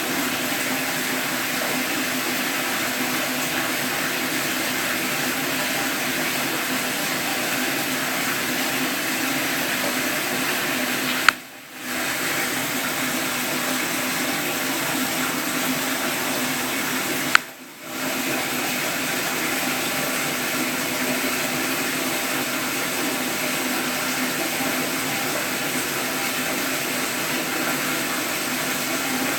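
Steady rushing of running water. Twice, about 11 and 17 seconds in, a sharp click cuts in and the water sound drops out for about half a second.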